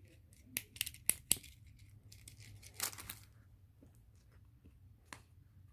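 Fidget toys being handled: a quick run of sharp little plastic clicks in the first second and a half, a short crinkly rustle about three seconds in, and one more click near the end.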